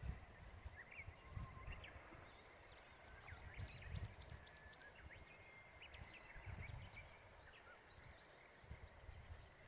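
Birds chirping with many short high calls over quiet outdoor ambience, with intermittent low rumbles.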